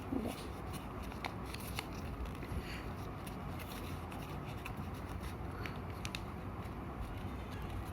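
A4 paper being folded by hand: faint scattered rustles and small crinkles over a steady low background hum.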